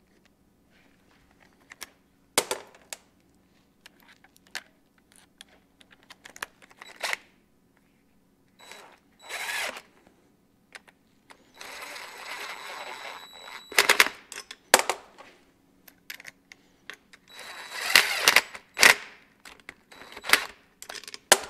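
DeWalt 20V cordless power tool running down the cover bolts of a Muncie TG-series PTO in several short rattling bursts, the longest about two seconds, with a motor whine. Clicks and knocks of socket and metal parts come between the bursts. The bolts are only being snugged down so as not to blow out the cover gasket.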